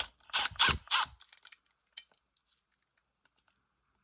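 Cordless impact driver buzzing in three short bursts about half a second in, driving down the ground screw on a 3-way light switch; then quiet.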